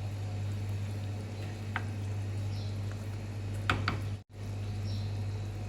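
Chicken tagine cooking on a stove burner: a steady low hum with a few light clicks near the middle, cutting out for an instant a little past halfway.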